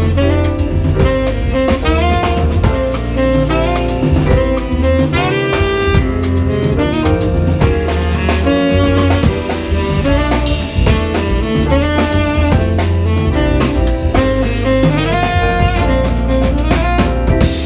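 Live jazz quartet playing: a tenor saxophone runs through quick melodic phrases over a drum kit and bass.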